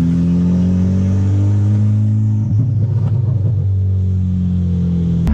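Engine of a built Volkswagen MK6 Golf R running, its pitch sinking slowly, with a rough, broken-up stretch lasting about a second a little past halfway, then running steady again.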